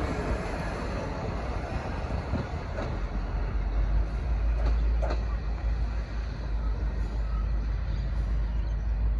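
V/Line diesel-hauled passenger train running past, a steady low rumble with a few sharp clicks in the middle.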